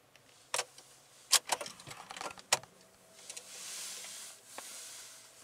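Car keys jangling and several sharp clicks as the ignition key is turned in a BMW E39 5 Series, powering up its navigation screen. A soft high hiss then swells and fades, and a faint steady high tone sets in.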